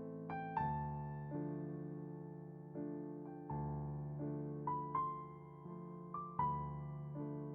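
Slow, soft piano music: gentle melody notes struck about once a second over held chords, each note fading slowly.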